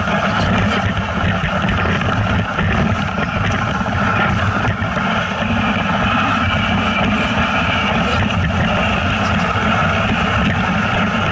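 A vehicle engine running steadily, with rushing noise.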